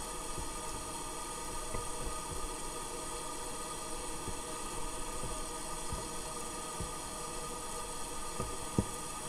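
Underwater engine noise from cruise ships and their tenders: a steady hum of many held tones at once, with a few short low knocks, the loudest near the end.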